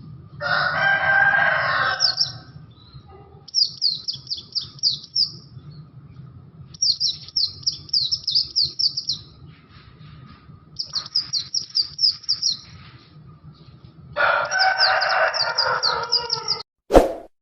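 Bustomi white-eye (pleci) singing: repeated bursts of rapid high chirping, each about two seconds long with short pauses between. Near the start and again near the end it gives a harsher, lower, rasping phrase. A sharp click comes just before the end.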